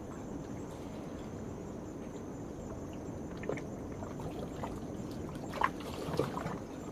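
Small waves washing and lapping against a rocky shore, with a steady high-pitched hum of night insects. A few small splashes and trickles come through from about halfway in, the clearest just before the end.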